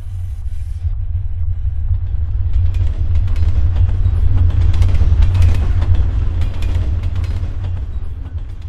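Deep, loud rumble that swells over the first few seconds and eases off near the end, with crackling over it in the middle.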